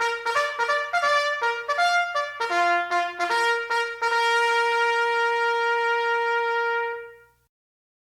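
A brass horn plays a quick fanfare of short, separate notes, then holds one long note that fades out about seven and a half seconds in.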